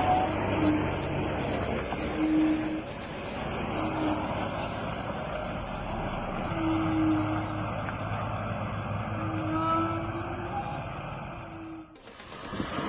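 Heavy cargo truck's engine running steadily, with short squeaking tones every second or two. The sound drops out suddenly near the end.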